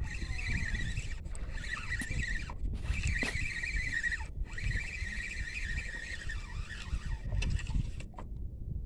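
Spinning reel being cranked to wind in the line, a whirring whine broken by a few brief pauses, stopping near the end. A low rumbling noise runs underneath.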